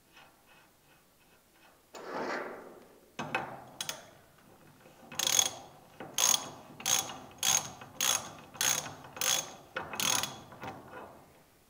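Socket ratchet wrench clicking through about eight quick back-strokes, roughly one every two-thirds of a second, tightening a nylock jam nut on a mud motor's propeller shaft; faint ticks of the nut being threaded on by hand come before.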